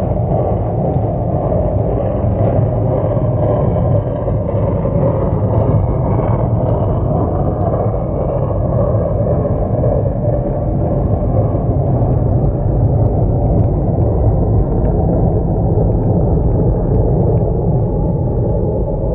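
O gauge model train, a steam locomotive followed by passenger cars, rolling past on the track in slow motion, its running noise and sound effects slowed into a low, steady rumble.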